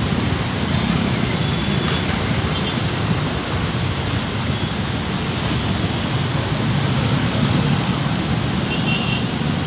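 Steady low roar of an airliner's jet engines on the runway, with a faint high whine of the engines showing now and then.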